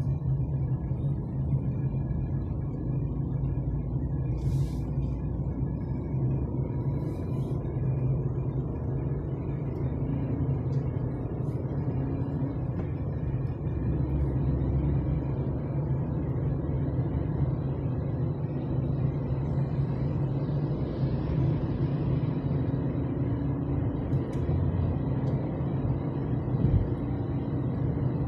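Steady low rumble of vehicle running noise, with a few faint clicks.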